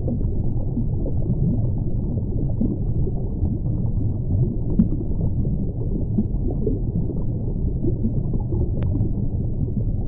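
Underwater ambience: a steady low, muffled rumble with small flickering sounds in it, and one sharp click near the end.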